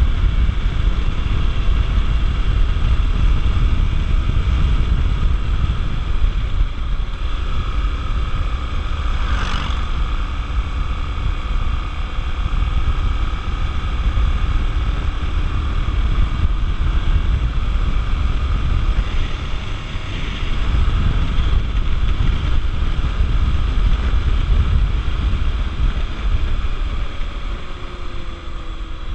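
Honda XR 250 Tornado single-cylinder motorcycle running at speed under heavy wind rush on the microphone, steady throughout, with one brief sharper sound about a third of the way in.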